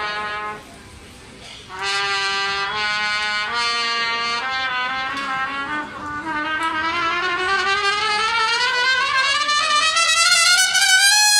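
A solo trumpet plays a held note that stops shortly after the start, then after a short pause a few separate held notes, then a long, steady climb in pitch over about five seconds up to a loud high note held at the end.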